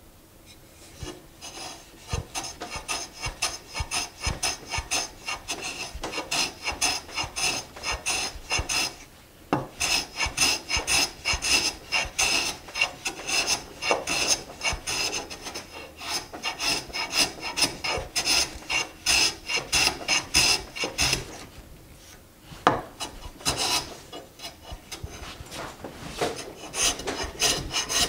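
Harbor Freight No. 33 bench plane cutting end grain in quick, short strokes, each pass a rough scraping rasp of the blade through the wood fibres. The strokes begin about two seconds in and break off briefly twice.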